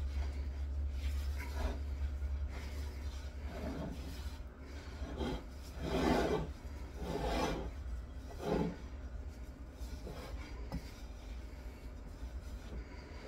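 Hands rubbing and mixing flour, ground sesame and butter together in a bowl to bring chebakia dough together: a run of uneven rubbing, scraping strokes, the loudest about six seconds in, over a low steady hum.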